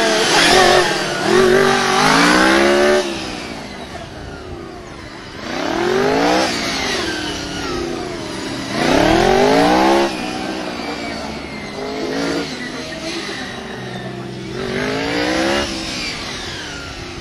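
Sport motorcycle engine revving hard in several bursts, each climbing steeply in pitch and then dropping off, as the rider accelerates out of one tight turn after another.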